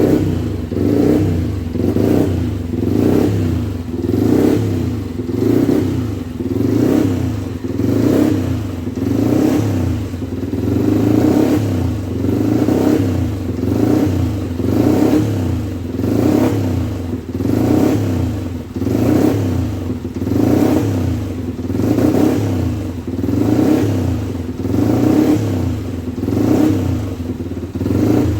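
Freshly rebuilt Yamaha 125cc motorcycle engine running and being revved over and over, its pitch and loudness rising and falling in an even cycle about every second and a bit.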